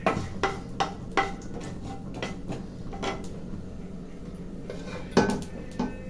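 Wooden spatula knocking and scraping against a nonstick frying pan while stirring cumin seeds and dried red chillies in hot oil: a quick run of knocks in the first second, then a few spaced-out ones. About five seconds in comes a louder clatter of steel dishes being moved.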